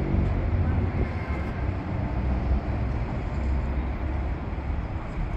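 City street ambience: a steady low rumble of road traffic, with faint distant voices.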